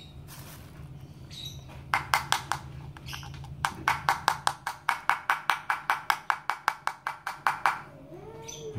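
Hard kitchenware tapping: a few light knocks about two seconds in, then a fast, even run of about five taps a second for some four seconds, each with a short ring, while the fresh lemon juice is taken from a hand juicer.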